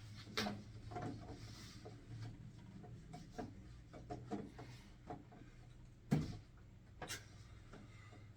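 Portable air conditioner parts being handled and fitted together: scattered light knocks, clicks and rubbing, with sharper knocks about half a second, six and seven seconds in.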